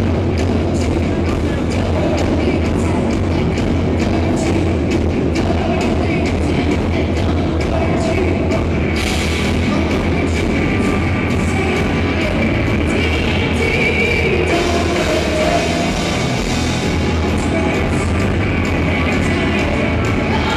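A live rock band playing loudly on stage: electric guitars over a drum kit, with frequent drum hits and a fuller, brighter sound from about nine seconds in.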